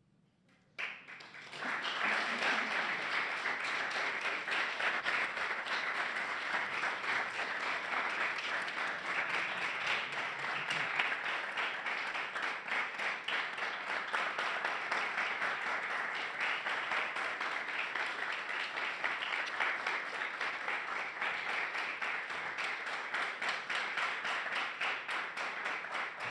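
Audience applauding: many hands clapping, breaking out suddenly about a second in after near silence and then going on at an even level.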